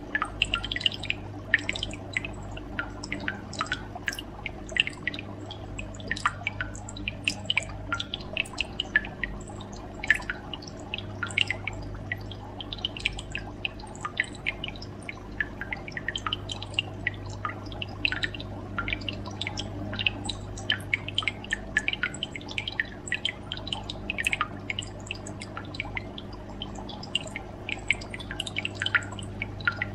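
Underwater reef ambience: a dense, irregular crackle of sharp clicks and pops over a steady low hum.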